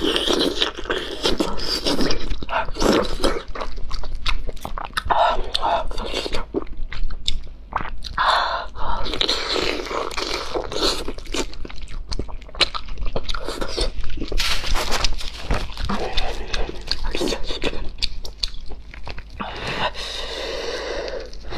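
Close-up mouth sounds of a person eating soft, fatty fish with chopped chili: biting and wet chewing with a steady run of sharp smacking clicks.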